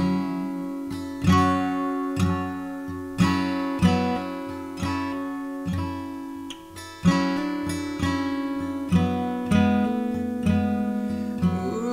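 Acoustic guitar strummed in an instrumental passage, chords struck about once a second and ringing between strokes, with quicker light strokes through the second half.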